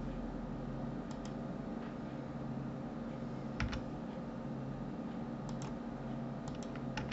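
Computer keyboard keys and mouse buttons clicking a handful of times, mostly as quick double clicks, the loudest about three and a half seconds in, over a steady low electrical hum.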